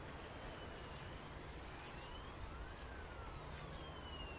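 Faint distant siren wailing, its pitch slowly rising and falling, over a steady low background hum.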